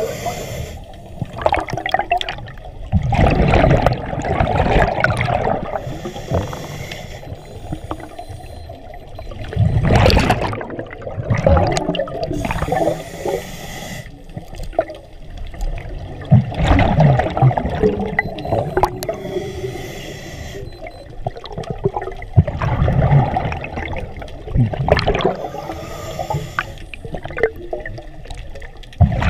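Scuba diver breathing through a regulator underwater: exhaled bubbles rush and gurgle past the camera in repeated bursts every few seconds, with quieter breaths between.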